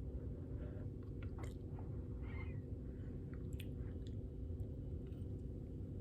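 Faint mouth sounds of someone tasting hot chocolate from a spoon: a few small clicks and a short slurp about two seconds in, over a steady low hum.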